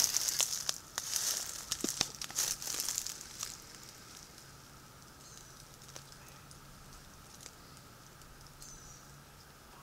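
Dry leaf litter rustling and crackling as a large snake crawls through it, busiest over the first three and a half seconds, then dropping to faint scattered rustles.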